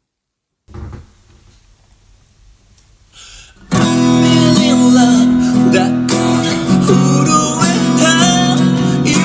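A Martin acoustic guitar starts a strummed intro about three and a half seconds in, with its open top strings ringing steadily under the chords. Before it comes a faint bump and quiet room noise.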